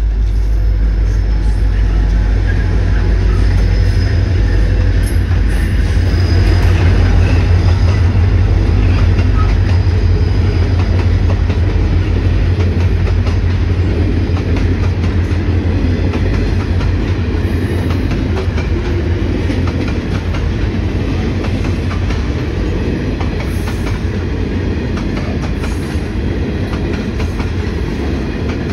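Grain train passing close by: the G-class and XR-class diesel locomotives run past with a heavy low engine rumble, then a long string of grain hopper wagons rolls by with steady wheel clatter on the rails.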